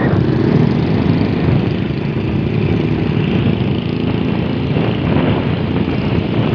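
Small motorcycle engine running steadily while riding along a road, with road and wind noise mixed in.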